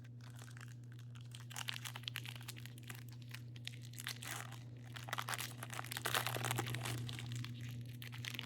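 Wrapper of a pack of baseball trading cards crinkling and tearing as it is opened by hand, in irregular crackles that build to the loudest handling about two-thirds of the way through, over a steady low electrical hum.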